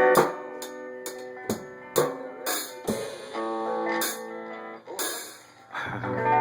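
A guitar being played: a ringing chord, then a run of single picked notes with sharp attacks, and a fuller chord strummed near the end.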